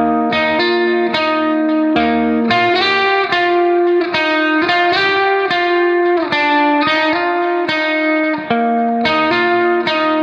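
Background music: a guitar picking a steady run of plucked notes.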